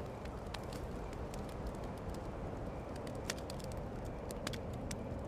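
Campfire crackling: scattered, irregular snaps and pops over a steady low background rumble.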